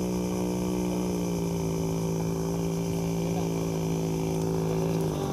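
Small 3 hp two-stroke outboard engine running steadily at low throttle. Its pitch eases down slightly about halfway through and again near the end.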